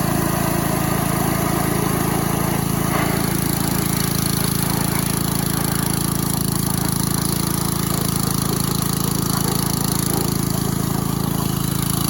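Pressure washer running steadily under load, a constant low engine drone with the hiss of the water spray over it.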